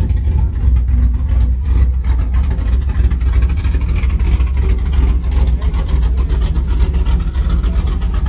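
A 5.3-litre V8 pickup engine with an aggressive BTR Stage 4 truck cam and long-tube headers idles steadily. Its exhaust runs as a deep, rapid pulsing with no revving.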